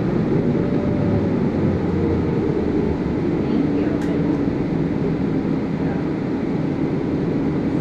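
City bus interior noise while riding: steady engine and road rumble with a faint drivetrain whine that drops a little in pitch partway through, and one brief click about four seconds in.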